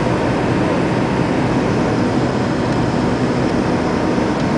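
Boeing MD-80's Pratt & Whitney JT8D turbofan engines running, a loud, steady, even noise with a low hum underneath.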